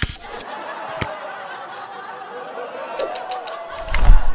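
A group of people laughing and chattering, with a quick run of sharp clicks about three seconds in and a loud low thump near the end.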